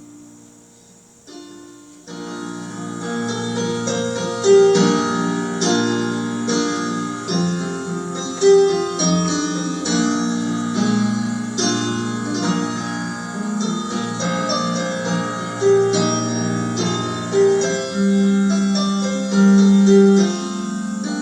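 Instrumental Christian hymn played on keyboard in slow, sustained chords. It starts softly and fills out about two seconds in.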